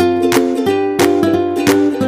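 Background music: plucked ukulele-style strumming with a steady beat.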